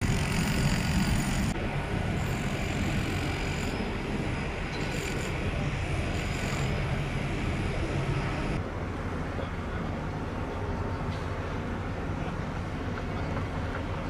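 Steady outdoor harbour ambience: a low rumble with a hiss over it. The hiss drops away about eight and a half seconds in.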